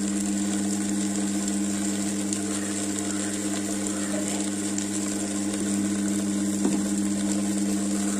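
Tabletop wet grinder running steadily, its stone rollers turning in the steel drum and grinding soaked urad dal with very little water into a thick batter: an even motor hum.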